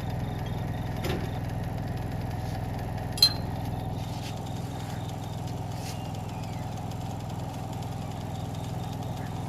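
An engine running steadily at idle, with a sharp metal clink about three seconds in and a fainter knock about a second in.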